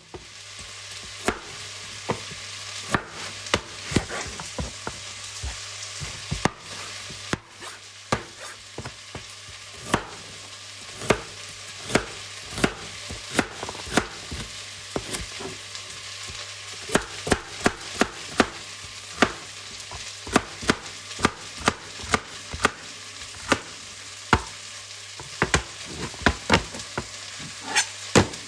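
Kitchen cooking sounds: food frying with a steady hiss, under frequent sharp, irregular knocks and clatters of utensils and chopping.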